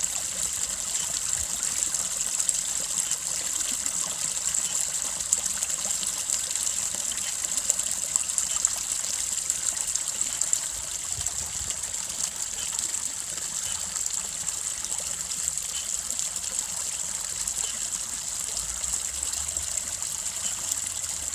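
A small brook babbling and trickling steadily over stones, with an even high hiss.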